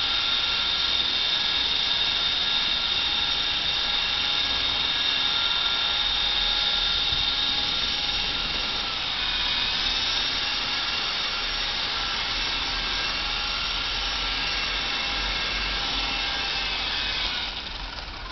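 Honeybee electric RC helicopter's motor and rotor whining steadily in flight, the pitch wavering a little around the middle. Near the end the whine drops away as the helicopter comes down to the floor.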